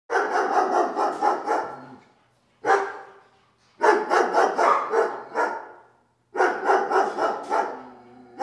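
A dog barking in rapid volleys of several barks a second, in four bursts, each trailing off.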